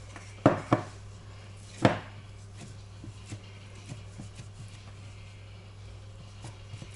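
Wooden spatula knocking sharply against a glass bowl three times, at about half a second, just after, and about two seconds in, followed by faint scraping and light taps as crumbly cheese curd is scraped off into the bowl.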